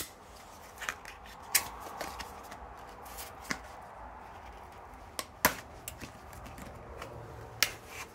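Packaging being cut and pried open with a knife to free a small multi-tool from its cardboard backing card: a handful of sharp separate clicks and snaps a second or two apart, the loudest right at the start, with rustling of the card in between.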